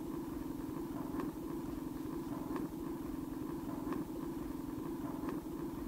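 Steady low hum with a fast flutter, with a few faint ticks scattered through it; no music is audible.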